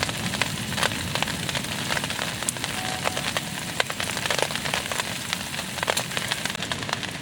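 Heavy rain falling on a camping shelter: a steady hiss dotted with many sharp drop hits.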